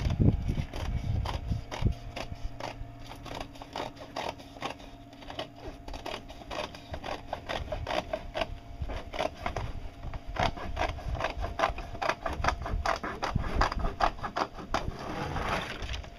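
Scissors snipping through woven fiberglass cloth in a rapid, steady run of short crisp cuts while trimming the edge of a boat hull layup. Near the end the cloth rustles as the trimmed strip comes free.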